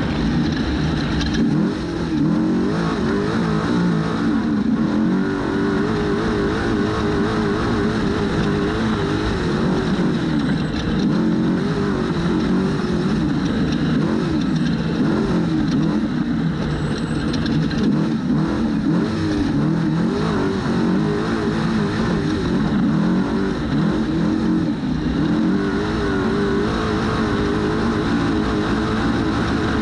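Trophy truck engine running hard, its pitch rising and falling continually as it revs up and down, over a steady rush of driving noise.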